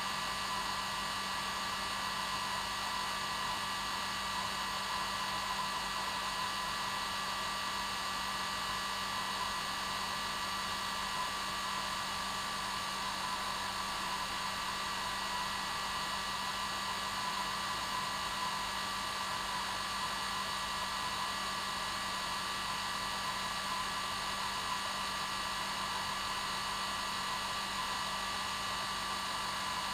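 Hair dryer running continuously at a constant setting: a steady whoosh of airflow with an even motor whine, no change in speed.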